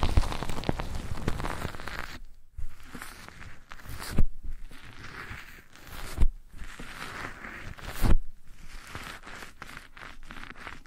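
ASMR trigger sounds: scratching and rustling rubbed right against the microphone, dense and crackly for the first two seconds, then softer. Three soft thumps land about two seconds apart.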